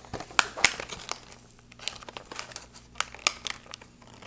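Crinkly plastic packaging handled and pulled open by hand, a run of sharp crackles, the loudest about half a second in and again a little after three seconds.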